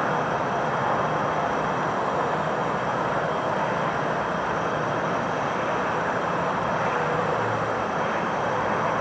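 Steady, even machinery noise, a constant rush with no breaks or distinct events.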